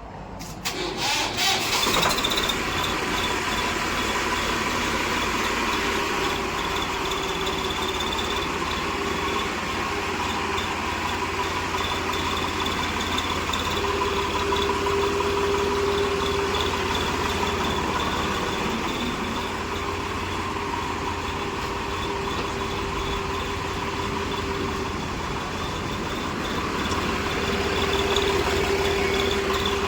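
Tractor engine running at idle, with a whistle insert fitted in its silencer giving a steady high-pitched whistle over the engine note.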